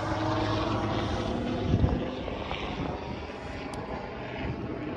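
An aircraft flying nearby: a steady engine drone that eases off a little after about two seconds.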